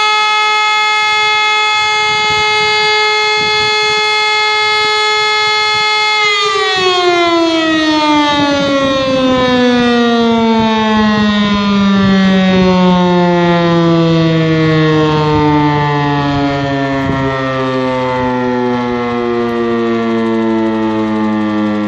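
Civil-defence motor siren holding a steady wail for about six seconds, then switching off and winding down in a long, slowly falling pitch as the rotor coasts. This is the end of one blast of the fire-alarm signal, sounded as a siren test.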